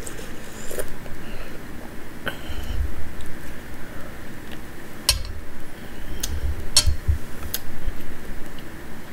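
Close-up eating sounds: chewing pozole and corn tortilla, with a metal spoon clicking sharply against the bowl about six times.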